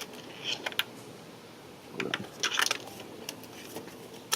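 Metal socket tools clicking and clinking as a 14 mm socket on an extension is worked onto a spark plug: scattered clicks, a short run of clinks about two seconds in, and one sharp click near the end.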